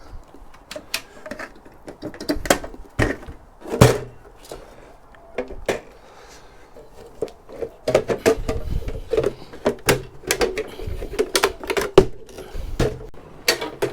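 Irregular sharp knocks, clicks and cracks of metal and plastic as a large server motherboard is levered and broken free of a mounting screw that won't come out. The hardest knocks come about 4 seconds in and again near 12 seconds, and there is a busy run of rattling from about 8 seconds.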